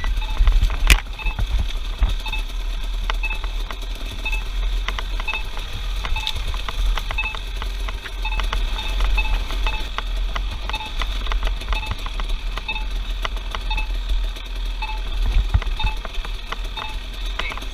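Short electronic beeps repeating about twice a second, over a steady low rumble with scattered clicks and rattles.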